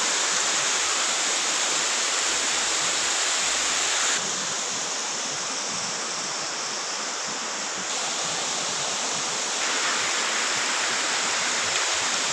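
Water of a mountain waterfall rushing steadily. It drops a little in level and brightness about four seconds in and comes back up near ten seconds.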